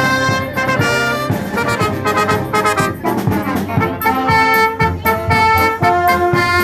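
Concert band playing, with brass (trumpets and trombones) carrying the tune in short, rhythmic notes over light percussion.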